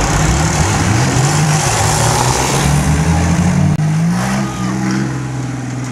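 Race-tuned tractor engines, one of them a Ford tractor fitted with a V6, running hard, the pitch climbing and falling as they rev. A little over halfway through, the revving settles into a steadier run.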